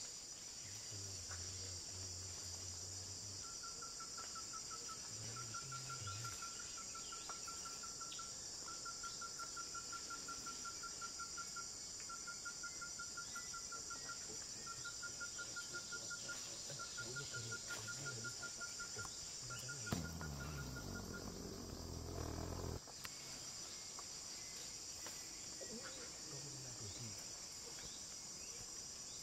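Steady high buzzing chorus of tropical rainforest insects. Over it, a fast-pulsing call at one pitch repeats in strings of one to two seconds from about four seconds in until about two-thirds through. A brief low rumbling rustle comes around the twenty-second mark.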